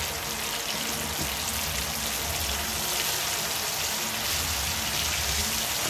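Battered chicken deep-frying in a wok of hot oil, the oil bubbling and sizzling steadily.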